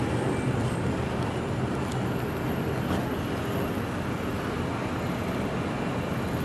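Steady city street traffic noise, with a tram running close by.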